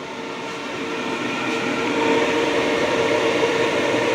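Workshop extraction fan with a 250 mm inlet running and blowing hard: a steady rush of air with a steady hum, growing louder over the first two seconds.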